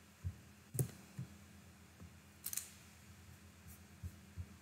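Faint clicks and soft knocks from a computer mouse and keyboard being used at a desk. The knocks are spread out, with one sharper click about a second in and a brief crackle at about two and a half seconds.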